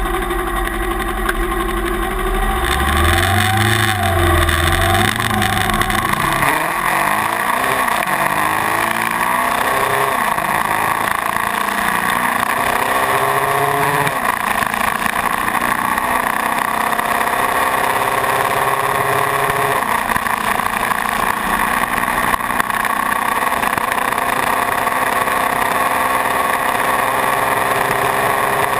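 Suzuki GS500's parallel-twin engine idling, then pulling away about three seconds in and accelerating up through several gear changes. Heavy wind rush on the microphone builds as the bike gets up to speed.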